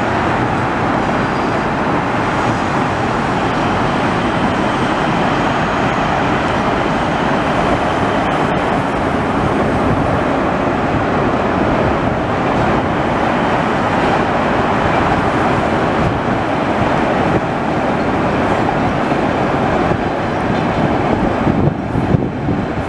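Stockholm metro trains running across a bridge, heard from afar as a steady rumbling rush of wheels on rails mixed with city traffic noise. Near the end the sound thins out and turns uneven.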